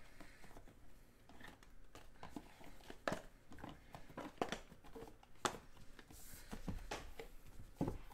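Faint handling of a cardboard trading-card box: the lid lifted off and sealed card packs taken out and set down, giving scattered light taps and clicks.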